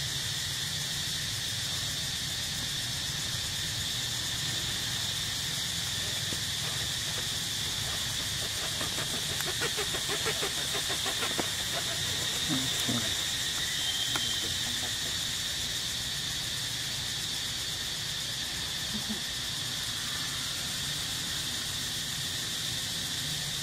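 Steady high-pitched insect chorus, the constant outdoor drone of cicadas or crickets, with faint vocal sounds drifting in briefly about halfway through.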